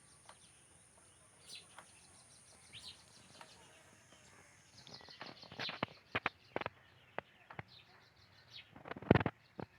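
Outdoor ambience with occasional short bird chirps and a steady high hiss that stops about halfway through. In the second half comes a run of sharp clicks and knocks, the loudest a little before the end.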